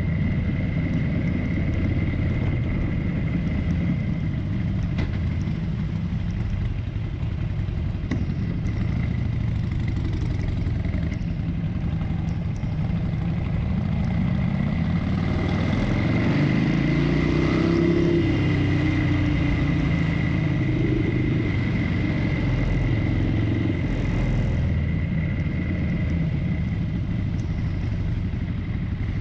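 Harley-Davidson Forty-Eight's air-cooled V-twin running at low revs as the bike slows from town speed nearly to a stop, with road and wind noise. The sound swells for a few seconds around the middle.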